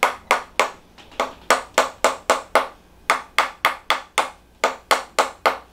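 Quick, sharp taps, about three a second with a short break about halfway through, from a chiropractic tapping instrument being worked over the sacroiliac joint.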